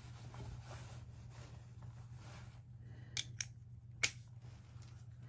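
A few short, sharp metallic clicks of hand tools and Torx screws, from taking the screws out of a macerator pump's cover, over a steady low hum. The clicks come about three seconds in and again near four seconds.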